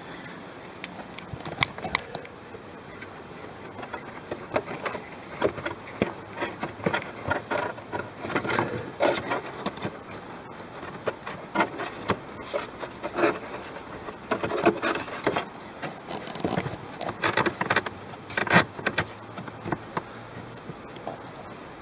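New pleated paper cabin pollen filter being handled and slid into its plastic housing: irregular rustling, scraping and clicking of paper against plastic, busiest in the middle and later part.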